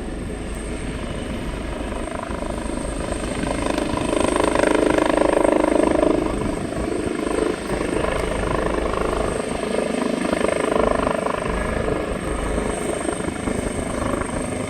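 Coastguard search-and-rescue helicopter flying close overhead, its rotors and engines running steadily with a constant high whine. It grows louder a few seconds in, then eases slightly.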